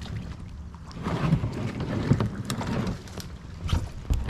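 Paddle strokes splashing in the water alongside a small paddled boat, louder for a couple of seconds in the middle, with wind rumbling on the microphone.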